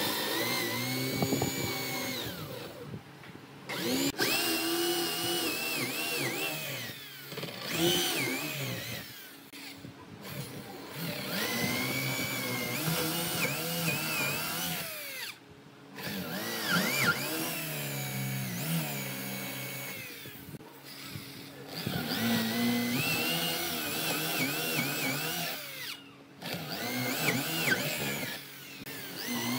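Corded electric drill boring holes into a wooden beam with a Forstner bit. The motor whine rises and falls in pitch as the bit bites into the wood, and it stops briefly about five times between holes.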